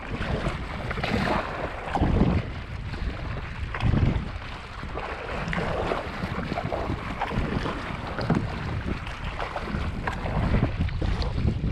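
Wind buffeting the microphone in uneven gusts, with water splashing and sloshing around a kayak as it is paddled.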